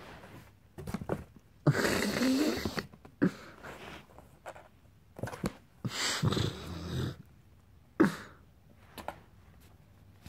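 A cardboard box scraping and rustling as a kitten scrabbles and pounces in it, in two rough bouts of about a second each, with light taps and knocks between.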